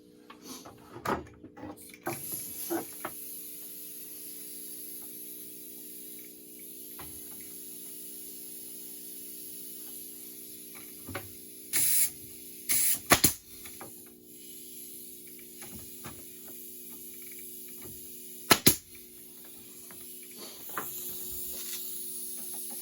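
Pneumatic brad nailer firing a few sharp shots into pallet boards, a cluster of three or four about halfway through and a quick double shot some six seconds later. Light knocks of boards being handled sit between them, over a steady low hum.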